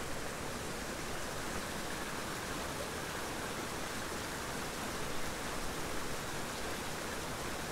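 Steady, even rush of a small creek's flowing water.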